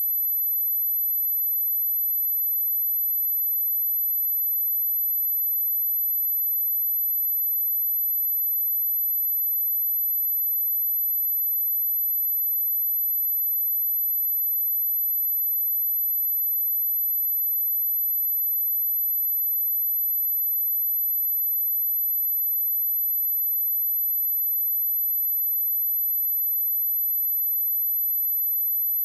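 A steady high-pitched pure tone near 12 kHz (an 11993 Hz sine wave), held unchanged at one level: a speaker test and speaker-cleaning tone.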